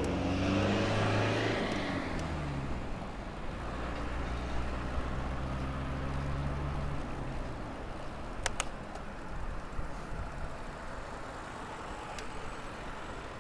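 A car engine running close by: its pitch drops about two seconds in, it holds steady, then it stops about seven seconds in, leaving road noise with a few sharp clicks.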